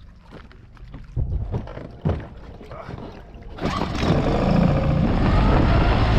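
Footsteps and knocks on old wooden planks, then, about three and a half seconds in, a sudden switch to a boat motor running steadily with wind buffeting the microphone.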